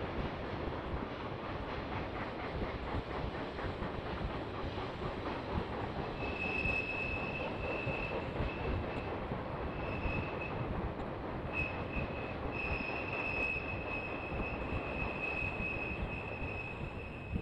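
A trailer-on-flatcar freight train rolling past, with a steady rumble and clatter of wheels on rail. From about six seconds in, a high thin squeal comes and goes over the rolling noise.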